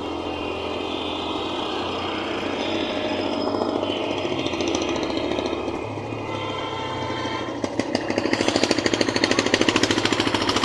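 Vehicle noise on the road: a steady engine hum with road noise. About three quarters of the way in it turns into a loud, rapid, rattling pulse that lasts to the end.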